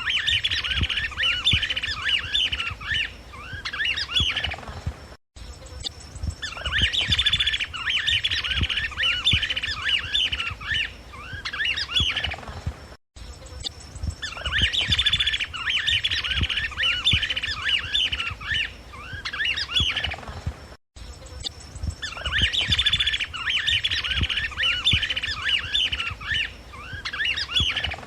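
Chapada flycatcher (Suiriri affinis) singing: four bouts of rapid, chattering notes, each lasting a few seconds and coming about every eight seconds.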